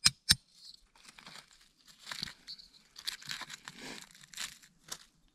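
Hands rustling and crunching through dry oak leaves and frozen snow on the forest floor while a frozen saffron milk cap mushroom is handled. Two sharp clicks open it, followed by uneven crackling rustles.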